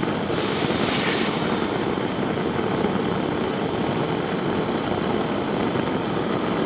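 Pressurised camp stove burner, fed from a liquid-fuel bottle, burning under a griddle pan with a steady rushing noise.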